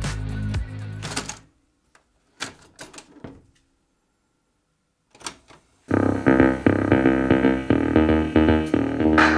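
Music stops about a second and a half in, then a few short plastic clicks as buttons are pressed on the Bluetooth/MP3 module fitted to a Sharp WQ-T360H boombox. Loud music starts about six seconds in.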